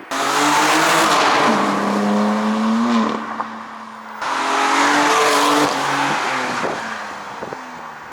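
BMW M3 (F80) Competition's twin-turbo straight-six under hard acceleration, twice: each time it comes in suddenly and loud with the pitch climbing, then eases off after a couple of seconds.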